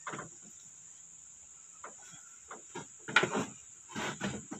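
Crickets trilling steadily and high, under a series of short knocks and rustles from someone moving and handling things, loudest about three seconds in.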